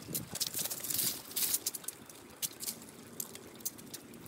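Paws and claws of two trotting dogs, a German shepherd and a labradoodle, pattering irregularly on pavement. A louder rustling rush comes about a second in.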